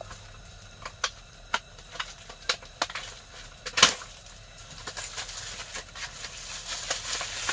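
Clear plastic shrink-wrap being pulled off a boxed disposable grill by hand, crinkling and tearing. A few sharp crackles come first, the loudest about four seconds in, then denser rustling toward the end.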